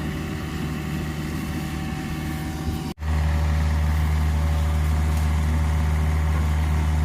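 Kubota machine's diesel engine running steadily with a low hum. The sound drops out for an instant about three seconds in and comes back louder.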